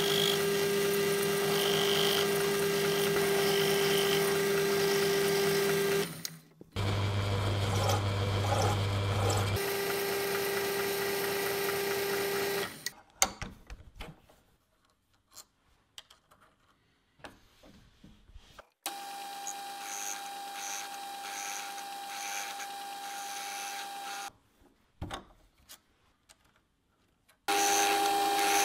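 Small metal lathe running and cutting a steel part held in a collet chuck: a steady motor hum with a held tone, in stretches broken by edits. In the middle the spindle stops, and there are a few seconds of small metal clicks and handling as the collet chuck is worked by hand. A quieter steady run with a light repeating tick follows, then loud steady turning again near the end.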